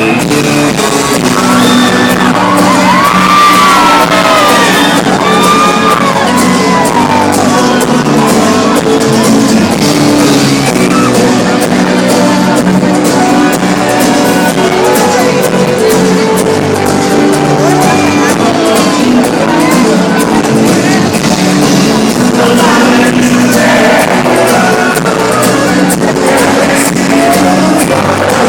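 Live music with a voice singing over it, and shouts and whoops from a crowd.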